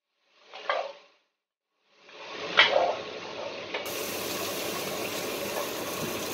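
Wooden spoon stirring stew in an enamelled cast-iron pot: a short scrape under a second in, a sharper scrape at about two and a half seconds, then a steady hiss of the simmering pot.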